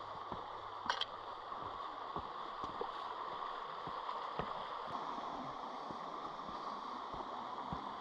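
Shallow river running over rocks, a steady rushing and gurgling of water.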